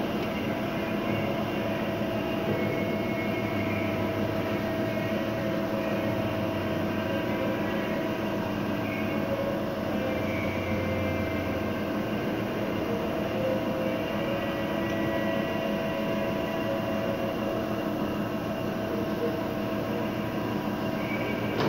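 Norton grinding machine running on a test: a steady machine hum with several fixed whining tones that hold level throughout.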